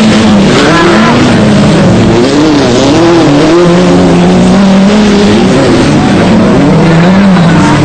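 Several stock-car engines racing together, loud, their pitches rising and falling and crossing as the drivers rev and lift.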